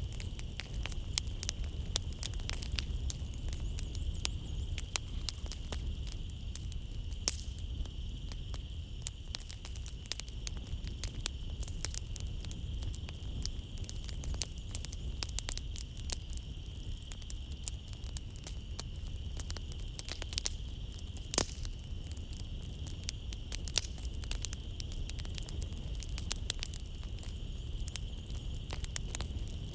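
Wood fire in a fireplace crackling, with frequent sharp pops and snaps over a low, steady rumble of flames. A steady high insect chirring runs behind it.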